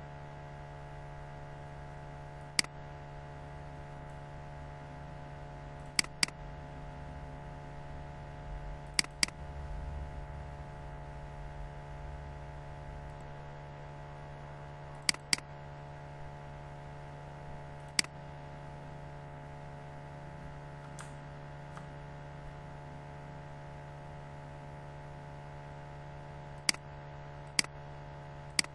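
Computer mouse clicking about ten times, some single clicks and some quick pairs like double-clicks, over a steady electrical hum.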